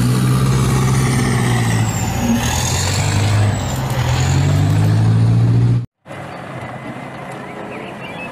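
Eight-wheeled armoured vehicles driving past, the engine running steadily with a high whine that dips and rises in pitch. The sound cuts off suddenly about six seconds in, giving way to quieter vehicle noise.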